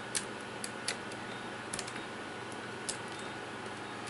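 About six sharp, irregular clicks and ticks as a laptop LCD panel is handled and worked loose from the lid, over a steady faint hiss.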